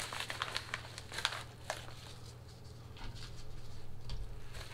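A yellow padded paper mailer being torn open by hand: quick crinkling and tearing crackles through the first couple of seconds, then quieter, sparser rustling.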